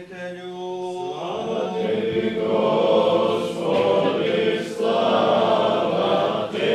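Orthodox liturgical chant: one male voice holds the closing note of the chanted Gospel reading, then about a second in a choir of many voices takes up a sung response.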